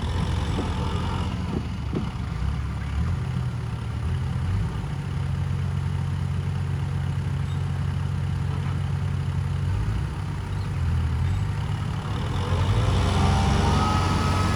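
Heavy-equipment diesel engine running steadily at a low rumble. About twelve and a half seconds in, it grows louder and higher as it is revved up.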